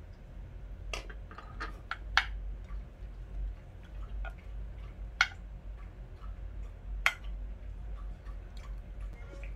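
Metal spoon clinking and scraping against a pan of fried rice, with about four sharp clinks among fainter small scrapes and taps, over a low steady hum.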